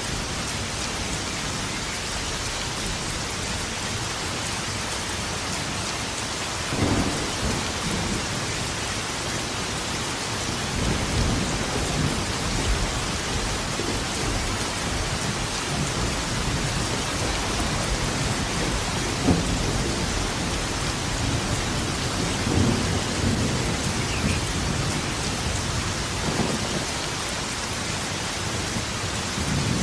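Steady heavy rain hissing, with thunder rumbling in low swells at several points.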